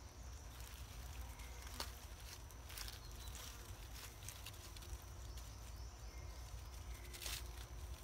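Baby macaques moving about on a rock and in dry leaf litter: a few light rustles and short clicks over a steady low outdoor rumble.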